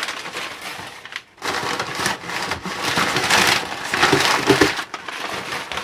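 Crumpled kraft packing paper crinkling and rustling as it is grabbed and pulled out of a cardboard box by hand, in irregular bursts with a short pause about a second and a half in.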